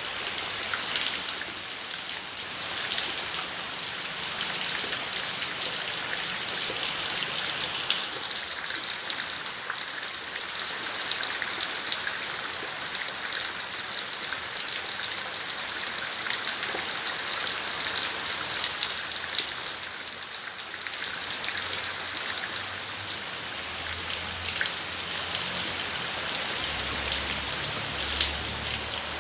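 Steady rain falling in a garden: an even hiss of rainfall with countless individual drops pattering on surfaces.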